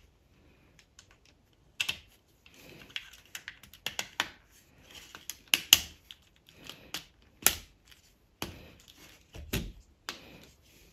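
Plastic Technic-style building parts clicking and clacking as pieces of a Happy Build Porsche 911 chassis are pressed together by hand. Irregular sharp clicks start about two seconds in, with soft handling noise between them.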